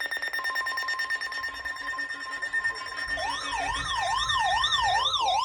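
Weather radio alert sounding: a steady high electronic tone, joined about half a second in by a second steady tone just above 1 kHz, the pitch of the weather-radio warning alarm. About three seconds in, a siren-like warble starts, sweeping up and down about three times a second.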